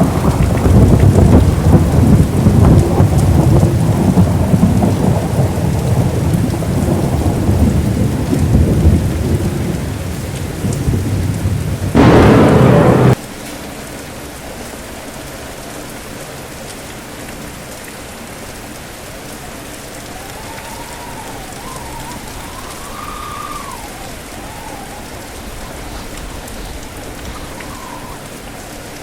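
Heavy rain under long, rolling thunder that rumbles for the first dozen seconds and ends in a loud crack about twelve seconds in. The sound then cuts off abruptly to steady, quieter rain, with a faint wavering whistle partway through.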